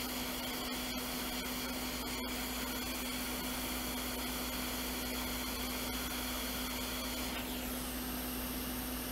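Hot air rework station blowing a steady hiss of air with a low hum while a chip is reflowed into place. About seven and a half seconds in, the sound changes with a brief falling whine.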